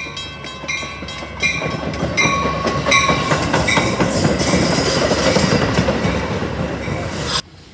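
Metra bi-level commuter train arriving and rolling past close by, its wheels rumbling and clattering louder as the cars go by, with a thin high squeal midway. A bell rings about once every three-quarters of a second over it. The sound cuts off abruptly near the end.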